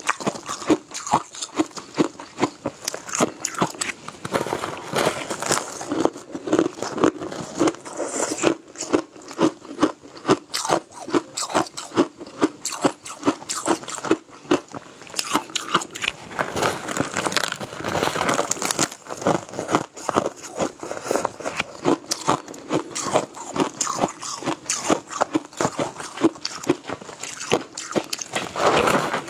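Biting and chewing a chunk of frosty crushed ice: crisp crunches follow one another several times a second.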